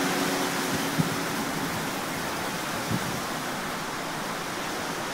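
Wind rushing steadily through leafy garden shrubs, a continuous noisy rush. A faint low hum fades out in the first two seconds, and there are two brief thumps, about a second and about three seconds in.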